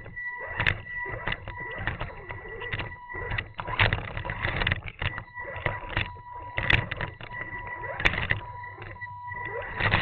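Axial Deadbolt RC rock crawler's electric motor and drivetrain running with a steady high whine as it climbs back up over rocks, with irregular clicks and knocks from the tyres and chassis on the stones throughout.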